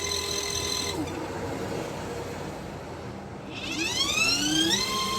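Small electric motor of a portable mini washing machine running with a steady whine, then winding down and falling in pitch about a second in. After a pause it spins back up with a rising whine and settles into a steady hum near the end, the stop-and-start of its wash cycle.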